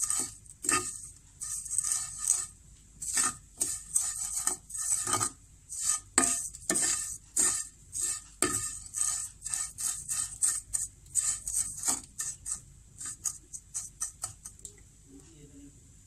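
A plastic spoon stirring and scraping dry vermicelli around a non-stick frying pan, short scraping strokes about two a second that stop shortly before the end. The vermicelli is being dry-toasted in a little oil until lightly golden-red.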